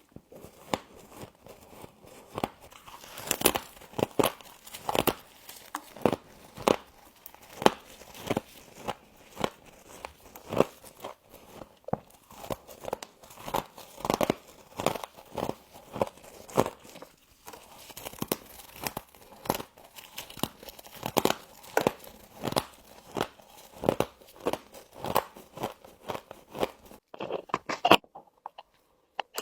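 Close-up crunching of humidifier frost being bitten and chewed: a steady run of sharp crunches, about one or two a second, with a short pause near the end.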